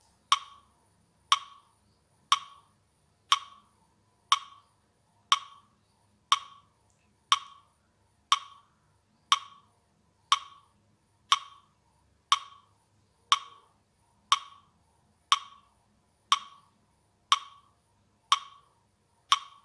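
A sharp, wood-block-like click struck once a second in a steady beat, a metronome pacing the timed breaths of deep breathing.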